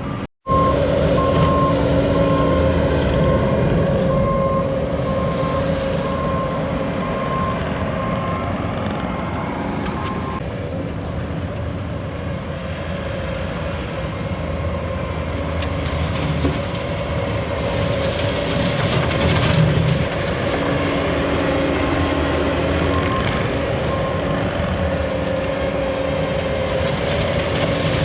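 Engine of a heavy earth-moving machine running steadily under work, with its reversing alarm beeping repeatedly for about the first ten seconds and briefly again later.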